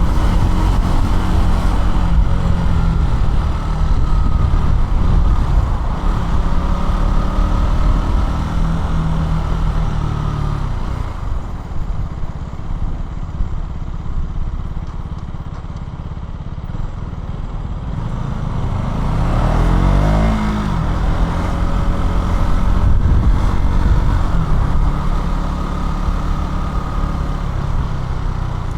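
KTM 200 Duke's single-cylinder four-stroke engine running under way, with wind and road noise. It eases off to a quieter stretch about halfway through, then revs up sharply about twenty seconds in.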